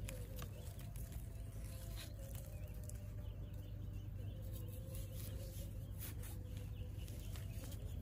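A broad knife blade scraping and digging into loose soil, a few short scrapes and clicks at irregular moments over a steady low hum.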